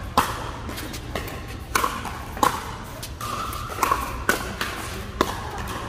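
Pickleball paddles hitting the plastic ball in a fast rally: a string of about eight sharp pops at uneven spacing, echoing in a large indoor hall.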